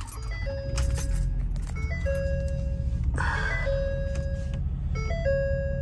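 Ford Super Duty's 6.7 L Power Stroke diesel fires and settles into a steady low idle. Over it a dashboard warning chime repeats about every second and a half, each time a short blip followed by a held tone, with a brief hiss about three seconds in.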